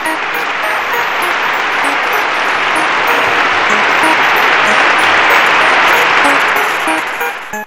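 Dense, steady applause that swells to its peak past the middle and fades out at the end, with short scattered musical notes over it.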